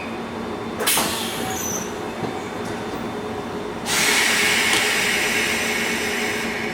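Railway car standing with its equipment humming steadily. About a second in there is a sharp knock with a short rush of air, and from about four seconds in a louder, steady hiss.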